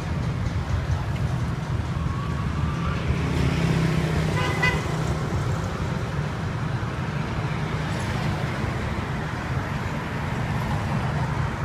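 Road traffic and motor engines running with a steady low rumble, and a short vehicle horn toot about four and a half seconds in.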